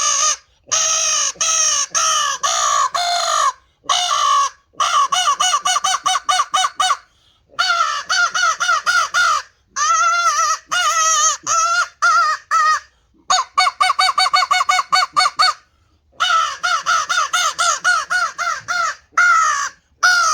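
Hand-made cherry wood crow call blown by mouth, sounding quick strings of caws, up to about five short notes a second, broken by brief pauses.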